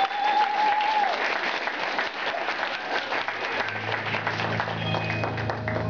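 Audience applauding at the end of a belly dance performance, with a held high whoop that falls away in the first second. A steady low hum comes in a little past the middle.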